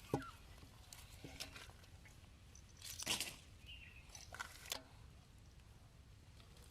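Scattered wet squelches and splashes of hands working through muddy water, with a louder one about three seconds in.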